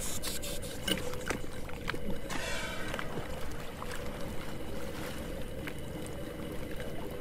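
Underwater ambience: a steady hum with scattered clicks and crackles, and a short buzzing tone about two and a half seconds in.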